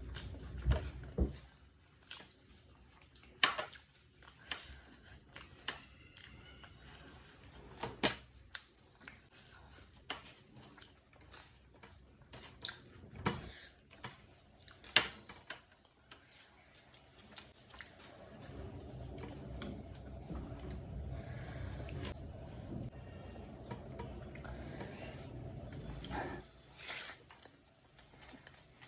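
Close-miked wet chewing and mouth clicks from a person eating big bites of chicken biryani, with irregular sharp smacks. A steadier low rumble runs for several seconds in the latter part.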